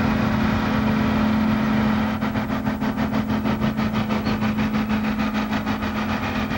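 Farm stock pulling tractor's engine running hard under full load as it drags a weight-transfer sled. About two seconds in the sound turns into a regular pulsing, roughly five beats a second, over a steady low drone.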